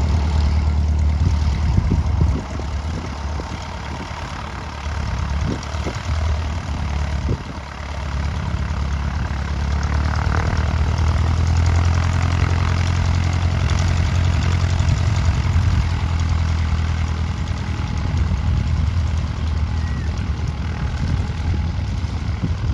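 Piston engine of a light propeller aircraft running at low power, a steady low drone that dips a few seconds in and grows louder again about eight seconds in.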